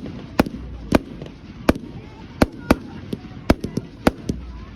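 Many fireworks going off at once: an irregular string of sharp bangs, roughly two a second, over a steady din of more distant ones.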